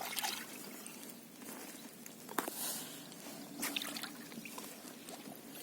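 Faint water sloshing and dribbling beside a small boat, with a few short splashes, as ducks are fed bread at the boat's side.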